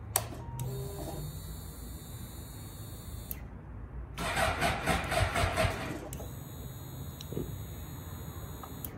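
Suzuki GSX-R750's starter cranking the engine for about two seconds without it catching, between two stretches of a steady high whine as the ignition is switched on and the fuel system primes. The engine fails to start because the battery is dead.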